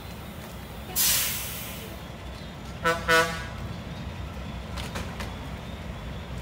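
Heavy truck engine running low and steady, with a sharp air-brake hiss about a second in, then two quick horn toots just before three seconds in.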